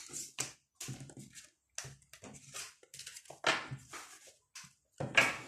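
A deck of tarot cards being picked up and handled: an irregular string of short rustles and taps.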